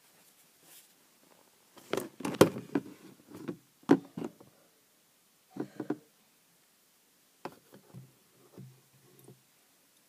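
Irregular knocks, clicks and scrapes of a phone being handled inside a kitchen cupboard, bumping and rubbing against the cupboard panels and plastic food containers. The loudest cluster of knocks comes about two seconds in, with smaller ones after.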